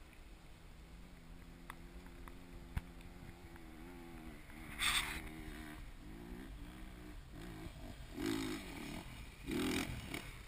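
Enduro motorcycle engine running steadily, then its pitch swings up and down, with two louder revs near the end. There is a short sharp noise about halfway through.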